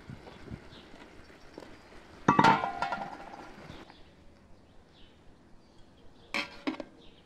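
Metal cookware clanking: a loud clang with a ringing tail about two seconds in, then two quick clinks near the end, from a large aluminium cooking pot, its lid and a metal ladle being handled.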